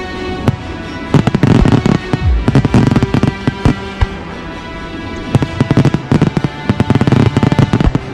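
Fireworks going off in two dense runs of rapid bangs and crackling, over background music with sustained tones.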